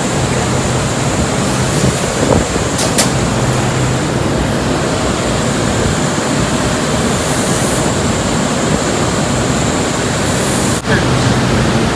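Buffing wheel spinning at about 3,000 RPM with a knife blade held against it to buff the burr off the edge: a loud, steady whir with a low motor hum.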